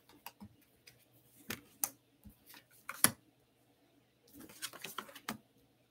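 Tarot cards being handled: scattered short flicks and snaps, with a quick run of them about four and a half seconds in.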